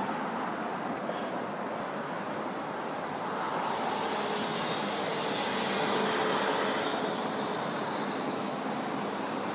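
Steady road traffic noise that swells a little in the middle as a vehicle goes by.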